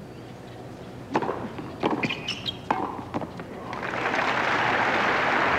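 A tennis rally of three racket hits: a serve, a return and a volley put-away. Crowd applause follows, starting a second after the last hit and swelling to a steady level.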